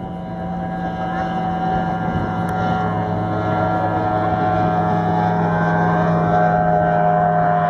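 Motorboat engine running at a steady pitch, growing steadily louder.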